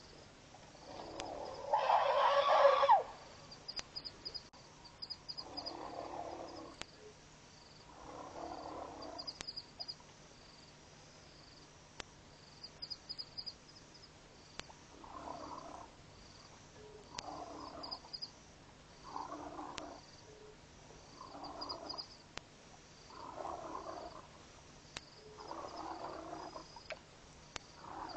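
An unseen large animal growling in a slow series of short calls, roughly one every two seconds, with one louder, harsher call about two seconds in; it may be a bull elephant in musth.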